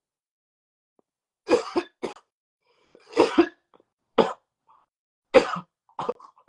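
A man coughing, a run of about seven coughs in clusters that begins about a second and a half in, brought on by smoking cannabis.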